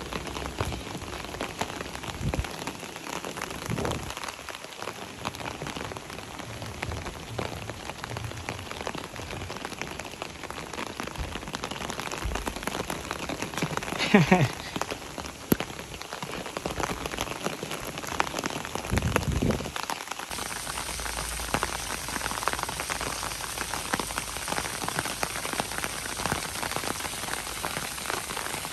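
Steady rain, a dense crackle of drops pattering on an umbrella held overhead. About halfway through, a brief louder sound glides down in pitch.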